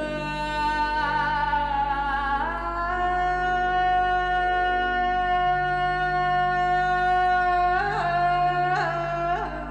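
Music: a solo melody of long held notes with slight vibrato over a steady low drone. The line slides down to a lower note about two and a half seconds in and breaks into quick slides and turns near the end.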